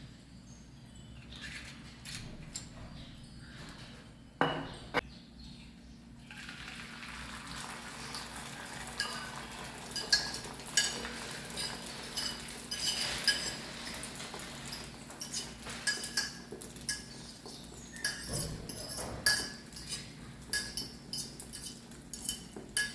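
Kitchen utensils knocking and clinking against dishes and cookware: two knocks about four to five seconds in, then a long run of sharp, ringing metal clinks over a steady hiss.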